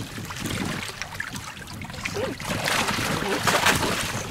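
Lemon sharks thrashing and splashing at the surface as they strike at bait hung on a line. The splashing grows in the second half and is loudest about three and a half seconds in.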